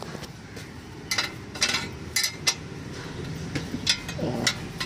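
Metal wrench clinking against the bolts and flange of a car's exhaust pipe joint while the bolts are worked: several sharp, irregularly spaced metal clicks.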